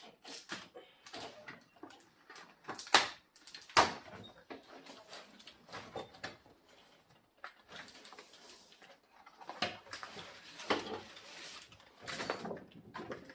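Handling noise from a tool bag being unpacked and examined: rustling of fabric and packaging, scattered clicks, and two sharp knocks about three and four seconds in.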